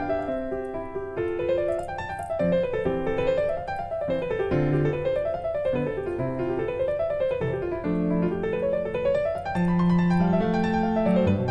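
Background piano music: rippling notes running up and down in repeated waves over held lower notes.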